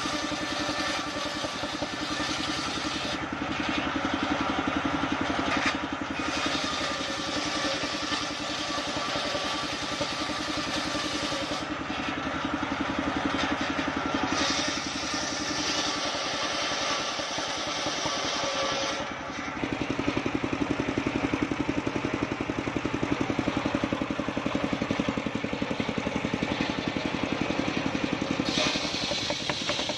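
Homemade engine-driven circular saw running, its large blade ripping lengthwise through a waru (sea hibiscus) log over a steady engine drone. The sound shifts and gets louder about two-thirds of the way in.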